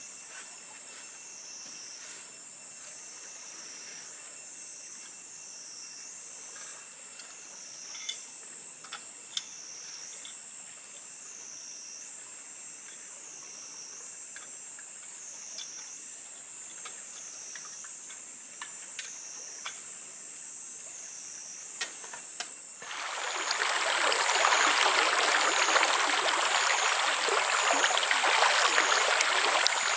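A high-pitched insect drone, wavering up and down in pitch about every second and a half, with a few faint clicks. About 23 seconds in, a much louder steady hiss starts abruptly and runs on until a sudden cutoff at the end.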